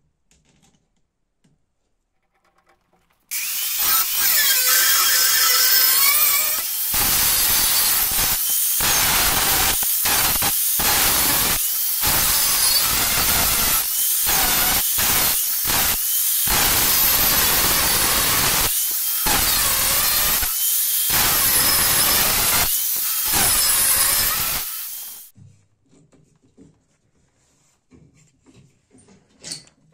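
Angle grinder grinding a stainless steel knife blank. It starts suddenly about three seconds in, runs loudly for about twenty seconds with short breaks every second or so, then winds down, followed by faint handling noises.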